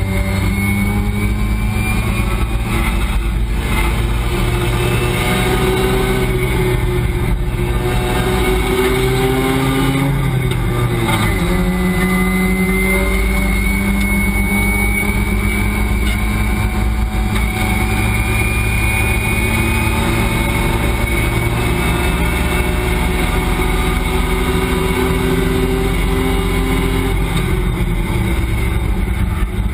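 Race car engine heard from inside the cockpit, pulling hard as speed builds, its pitch climbing steadily. About eleven seconds in, one gear change drops the pitch, and then it climbs again.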